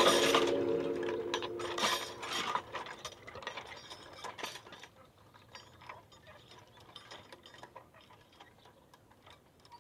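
Playground swing creaking on its chains as the empty swing rocks, loud at first, the creaks thinning out and dying away over the first five seconds as it comes to rest.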